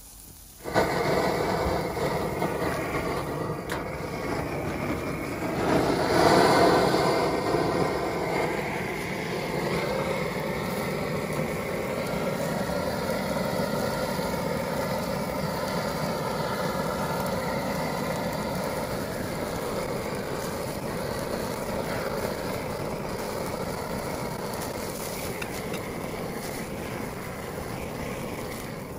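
Handheld gas searing torch with a Sear Pro S.A.F.E. flamethrower nozzle, opened up about a second in and then burning steadily with a rushing flame noise carrying a few faint steady tones, loudest around six seconds in, as it sears steaks on the grill.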